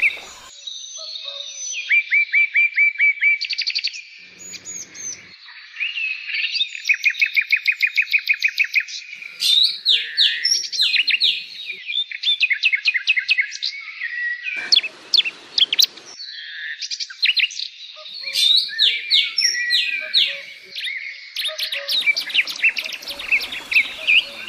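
Small songbird chirping in fast runs of many repeated high notes, several runs with short pauses between them. About fifteen seconds in there is a brief rustle.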